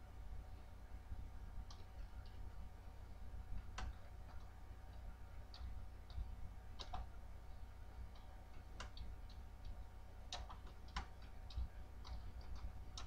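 Slow, uneven keystrokes on a computer keyboard, faint single clicks typed one at a time, over a low steady hum.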